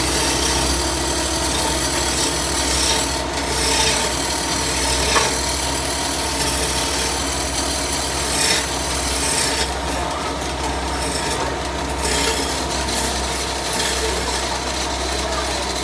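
Wood lathe spinning a wooden cot leg while a long hand-held turning chisel cuts it: a continuous scraping rasp of steel on wood, swelling now and then as the tool bites, over the lathe's steady motor hum.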